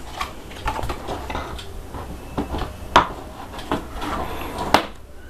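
Rigid plastic cupboard side panel being set and pressed into the moulded plastic base: a string of light plastic knocks and clicks, the sharpest about three seconds in and another near the end as the panel snaps into place.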